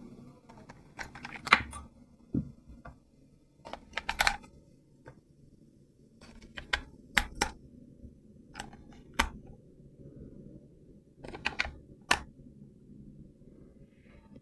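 Irregular sharp clicks and taps of hard plastic being handled, coming in small clusters.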